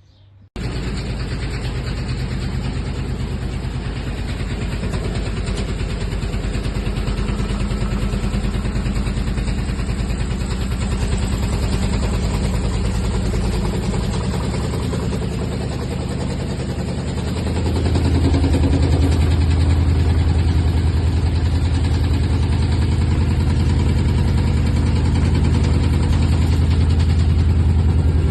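Front-loading washing machine running with a steady mechanical drone. The low hum grows louder about 17 seconds in, as when the drum speeds up in a spin.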